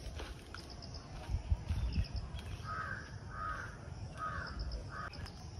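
A bird calling repeatedly in the open: a run of about five short calls roughly half a second apart, starting about halfway through, over a low rumble.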